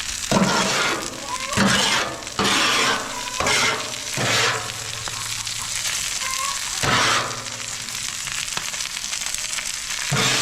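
Food sizzling steadily on a Blackstone flat-top griddle, with a spatula stirring and scraping through it in about half a dozen louder surges.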